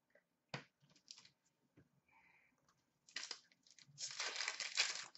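A foil trading-card pack wrapper crinkling and tearing as it is opened by hand. There is a short rustle about three seconds in, then a longer spell of crinkling near the end. A single click comes about half a second in.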